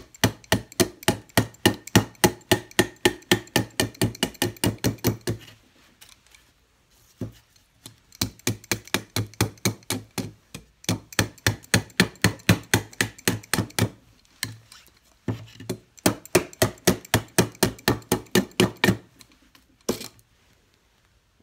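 Ka-Bar knife blade chopping into a bark-stripped wooden limb in quick strokes, about five a second, in several runs with short pauses. A single last chop comes near the end, and then the chopping stops.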